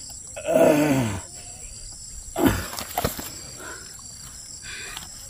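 A man lets out a loud growling roar, falling in pitch, about half a second in. A short thump and a sharp knock follow between two and a half and three seconds in, over steady insect chirping.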